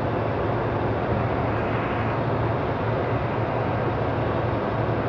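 Semi-truck cab noise while driving at a steady speed: the diesel engine's constant low drone under an even rush of road and tyre noise.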